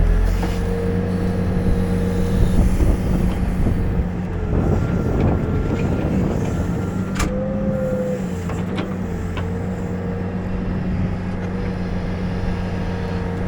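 Backhoe loader's diesel engine running steadily, with a rougher, noisier stretch of working sound from about four to seven seconds in, a single sharp click near the middle, and a brief rise in engine pitch just after it.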